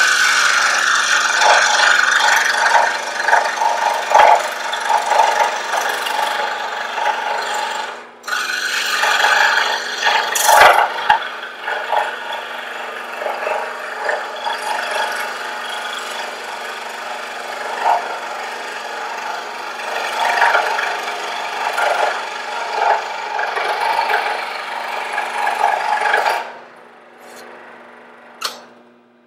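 Porter-Cable 18-inch variable-speed scroll saw cutting a wooden workpiece, a steady sawing noise that dips briefly about eight seconds in and stops a few seconds before the end.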